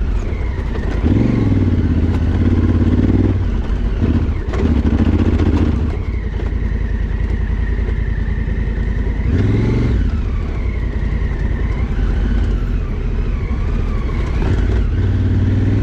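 Adventure motorcycle engine running as it is ridden over a rocky trail, its revs rising and falling with the throttle several times. A couple of short knocks come through, about four and a half seconds in and again near ten seconds.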